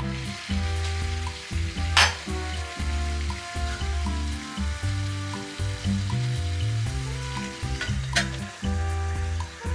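Water at a rolling boil in an enamel saucepan, a steady hiss, under background music with a steady bass line. A sharp metal clink about two seconds in and another near the end come from the aluminium steamer plate and lid being handled on the pot.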